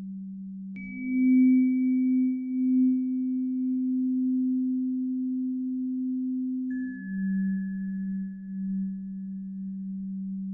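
Paced-breathing tones for HRV breathing: a steady low hum steps up in pitch with a high bell-like chime about a second in and holds for about six seconds, then steps back down with a second, lower chime, marking the switch between breathing in and breathing out.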